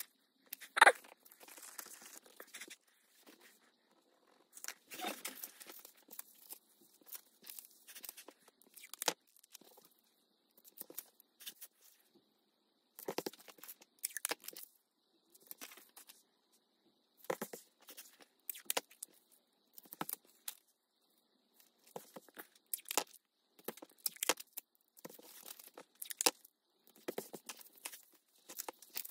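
Craft materials being handled on a workbench: irregular rustling, scraping and crackling noises with scattered taps, including a sharp click about a second in.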